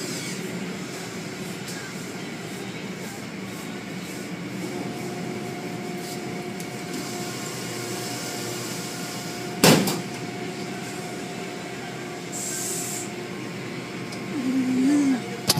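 Car wash machinery running with a steady wash noise, a single sharp knock a little past the middle, and a short high hiss a few seconds later.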